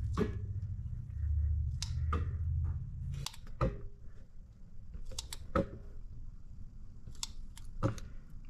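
Plastic bottle of Slime tire sealant being squeezed by hand, its sides giving a scattered series of sharp clicks and crackles as sealant is pushed through a hose into a motorcycle tire's valve stem. A low hum underneath stops about three seconds in.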